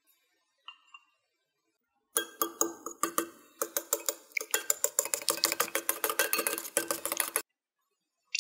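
A utensil beating eggs in a ceramic bowl, clinking rapidly against its sides about six times a second. The beating starts about two seconds in and stops abruptly about a second before the end.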